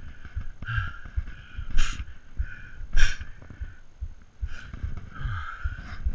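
Heavy, labored breathing of a mountain biker riding with a head cold, a breath about every second, with two sharper, louder puffs about two and three seconds in. Underneath, the bike knocks and rattles over the rough trail.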